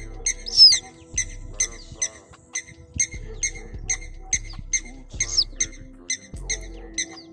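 Background music with a steady, quick beat. A bird chirps twice over it, a short falling call about half a second in and again about five seconds in.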